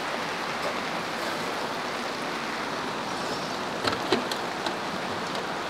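Steady rain falling, an even hiss throughout, with a few light clicks about four seconds in as metal jerky trays are handled.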